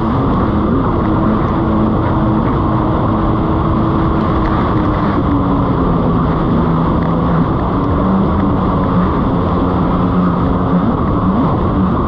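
Jet ski engine running under way over a steady rush of noise, its pitch sinking a few seconds in and rising briefly again near the end as the throttle changes.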